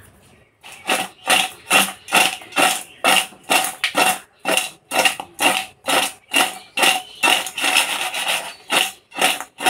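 Raw crab pieces being mixed with turmeric and salt in a stainless steel bowl: the shells clatter against the metal in a steady rhythm of about two to three strokes a second.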